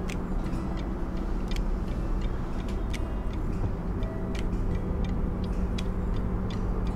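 Steady low mechanical hum and rumble with a constant tone, like machinery running, with scattered light clicks over it.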